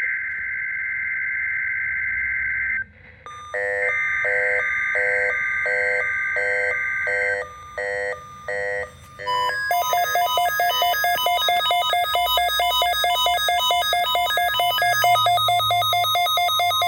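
Emergency Alert System test tones. A harsh warbling data-burst header sounds for about three seconds, then returns with pulsed electronic beeps at about two a second over it. From about halfway through, a steady weather-radio alarm tone sounds with rapid multi-pitched beeping layered on top.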